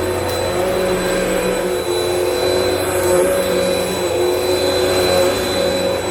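Vacmaster UC0101 bagless upright vacuum running steadily during a mess test: an even motor drone with a high whine.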